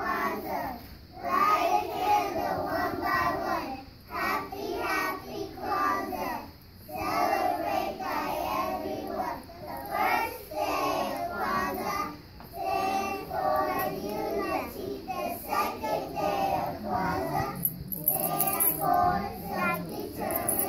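A group of preschool children singing together, phrase after phrase with short breaks between lines.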